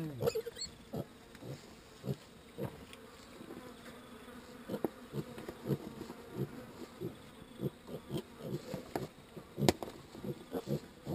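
A litter of young piglets grunting softly in many short, low grunts, overlapping into a low buzzy chatter as they nuzzle about. A single sharp tap stands out near the end.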